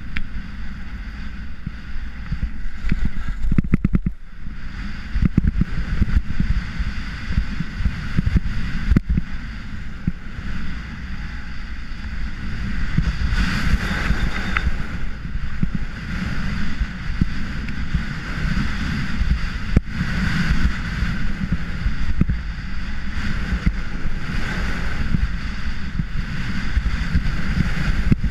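Wind rumbling over an action camera's microphone during a downhill ski run, with the hiss of Atomic Crimson ski edges scraping across packed groomed snow, swelling several times as the skis turn. A few sharp knocks cut through the noise.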